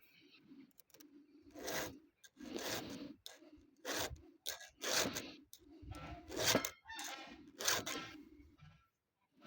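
About seven slow scraping strokes, roughly one a second, with no engine running.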